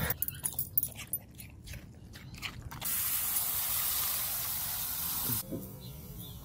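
A few light clicks and knocks, then a steady hiss of pressurised water spraying from an expandable garden hose's brass fitting. The hiss starts suddenly about three seconds in and cuts off sharply after about two and a half seconds.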